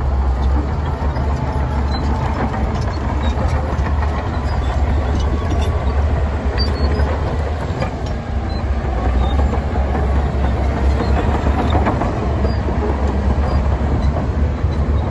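Heavy diesel earthmoving machinery running steadily: a deep engine drone with scattered small metallic clanks and rattles.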